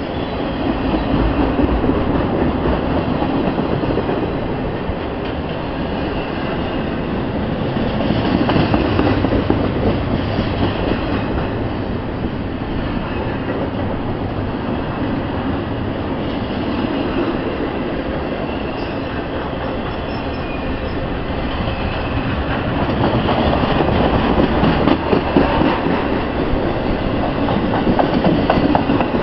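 Freight train of flatcars loaded with truck trailers rolling past: a steady rumble of steel wheels on rail with clacking, swelling louder and easing off a few times.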